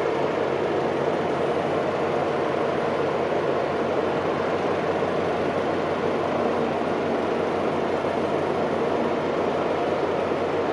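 Steady, even drone of a passing container ship's engines and machinery.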